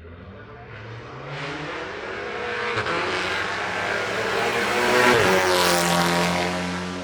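Hillclimb race car accelerating hard away from the start, its engine pitch climbing, breaking at an upshift about three seconds in and again near five seconds. It is loudest as it goes past, then drops in pitch and fades, leaving a steady engine drone.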